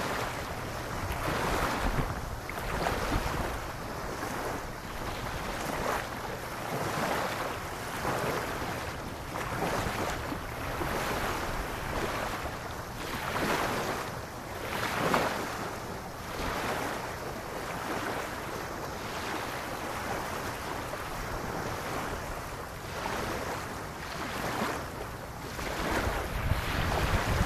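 Small waves lapping on a sandy beach: a soft wash of surf that swells and fades every second or two. Wind rumbles on the microphone underneath, strongest near the end.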